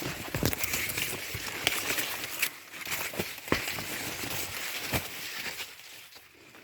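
Dry corn plant leaves and husks rustling and crackling while green corn ears are picked by hand, with several sharp snaps scattered through it. It quietens near the end.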